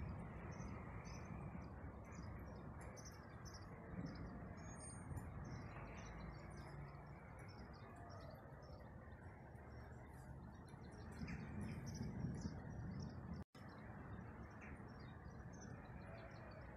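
Outdoor ambience before a thunderstorm: a steady low rush of air with a few low rumbling swells, and many short, high bird chirps scattered throughout.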